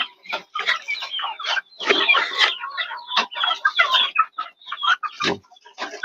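A flock of young Bangkok chickens clucking and chirping in a dense, overlapping chatter as they feed at a trough, with one dull knock about five seconds in.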